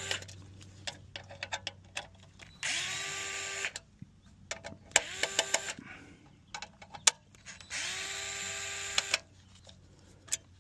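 Cordless power driver running in three short bursts of about a second each, the motor spinning up at the start of each, as Torx screws are backed out of a car radio's mounting bracket, with small clicks of parts being handled in between.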